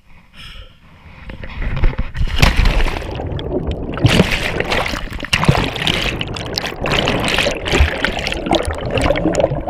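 Water splashing as the camera goes under about two seconds in, then a continuous rush of churning, bubbling water heard from underwater.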